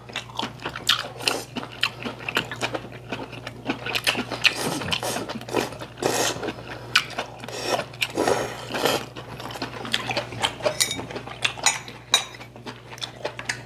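Close-miked eating: a man slurping strands of braised kimchi off his chopsticks and chewing, a string of short, irregular wet smacks and clicks.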